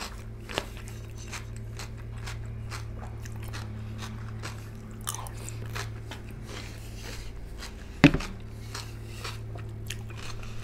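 A person chewing and biting into fresh cucumber-and-tomato salad, with many small crunches and wet mouth clicks throughout. One loud knock of tableware about eight seconds in, over a steady low hum.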